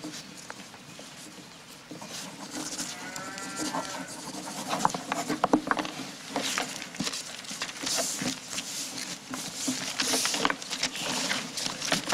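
Soundtrack of a TV war drama: a short animal call, like a cow lowing, about three seconds in, then a run of clicks and knocks over a steady low hum.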